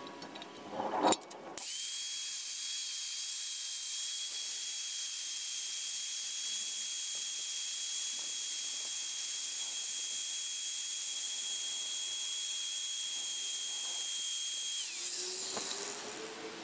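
Angle grinder grinding the shoulder of a hardened bearing-steel tool blank clamped in a vise: a steady high whine over a grinding hiss. A sharp knock comes just before the grinder starts. Near the end the grinder is switched off and its whine falls away as it winds down.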